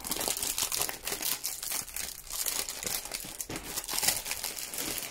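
Thin plastic packaging crinkling and rustling under hands in a dense, irregular run of crackles.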